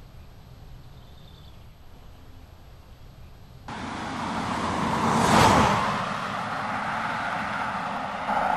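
A BMW 730d (E65) with a straight-six turbo diesel passing close by at speed: after a few seconds of faint outdoor ambience, a rush of tyre and engine noise swells to a peak about five seconds in, then eases off as the car pulls away.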